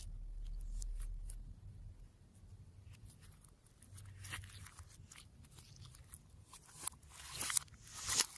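Hands working slime, giving scattered clicks and crackles that grow louder and denser near the end.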